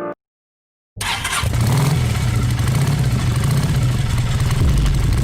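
Hero Xtreme 160R's single-cylinder engine running steadily. It comes in suddenly about a second in after a brief silence and holds an even pitch.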